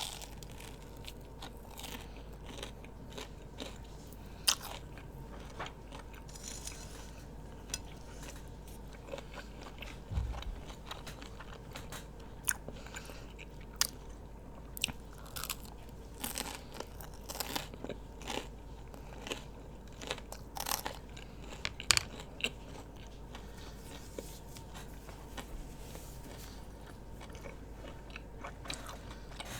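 Close-miked eating: a person chewing and biting food, with irregular short sharp mouth clicks and smacks.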